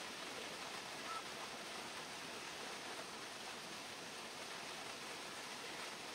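Heavy rain falling, a steady even hiss, with one short faint high chirp about a second in.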